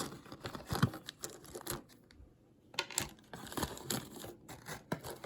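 Crinkling and rustling of small parts packaging, with light clicks of small carburetor tuning parts such as plastic pump cams being handled.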